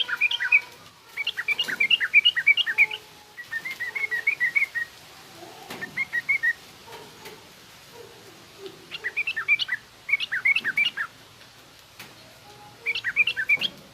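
Yellow-vented bulbul (trucukan) singing: repeated short phrases of quick, bubbling, rough chattering notes, about six phrases with brief pauses between them.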